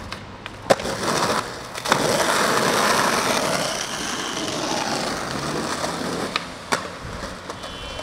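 Skateboard: sharp clacks of the board striking the ground about a second in, near two seconds and twice near the seven-second mark, with several seconds of rough rolling noise from the wheels in between.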